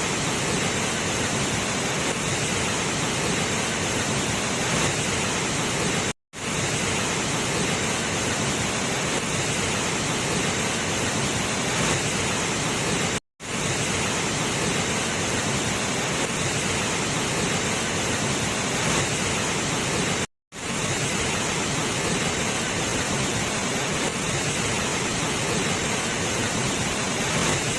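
Steady, loud rushing of a waterfall, an even wash of falling water, cut off for a split second three times, about every seven seconds.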